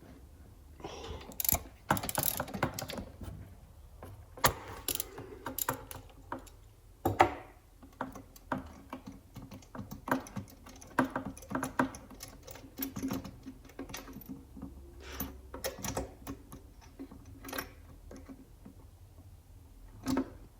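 Socket ratchet clicking in irregular runs, with metal tool clatter, as a 16mm deep socket works the spark plug out of a small generator's cylinder head.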